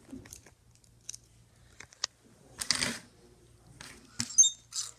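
Light handling noise on a tabletop: scattered small clicks, a short rustle about two and a half seconds in, and a sharper knock a little after four seconds.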